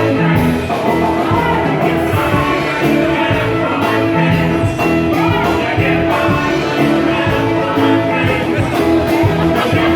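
Live rock band playing with electric guitar and drums, with singing heard over them.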